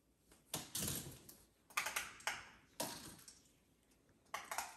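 Fidget toys being popped and clicked by hand: quiet, sharp clicks in small clusters of two or three, with short pauses between them.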